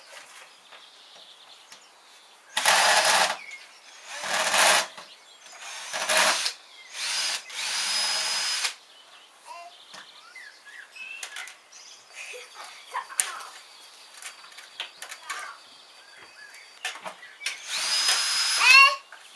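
Cordless drill-driver running in short bursts, about six times, to back screws out of a washing machine's casing, with small clicks of handling between the bursts.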